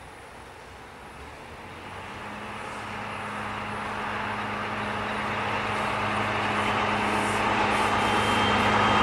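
Diesel locomotive hauling a train of passenger coaches, its engine hum and the rail noise growing steadily louder.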